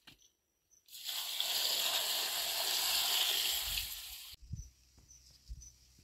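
Water poured out of a metal cooking pot onto the ground: a steady splashing gush lasting about three and a half seconds that stops abruptly.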